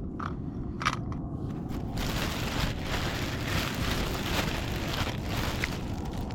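Rustling and crackling handling noise that starts about two seconds in and continues, over a steady low rumble, with a single click about a second in.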